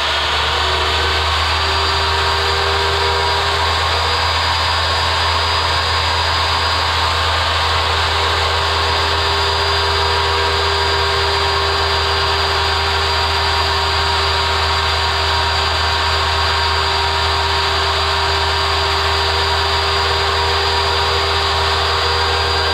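Chop saw's brushed electric motor running steadily at speed, a high whine over a low hum.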